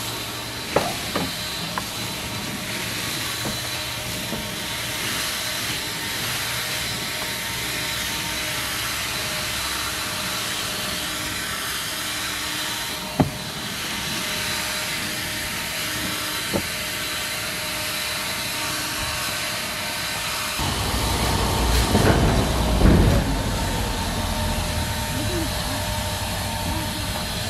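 Handheld leaf blower running steadily, a continuous rush of air with a faint whine, blowing dry fallen leaves. A heavier low rumble joins about three quarters of the way through.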